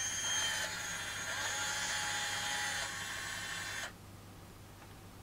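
YSL Rouge Sur Mesure custom lipstick machine running, a steady high mechanical whine that changes a few times as it dispenses the custom-mixed shade into its compact, then cuts off suddenly about four seconds in.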